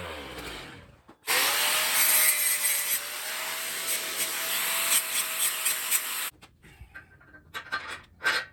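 Slab planer's cutter running and cutting across wood: a loud, even hiss with a steady whine for about five seconds that cuts off suddenly. A motor winding down is heard at the start, and scattered clicks and knocks come near the end.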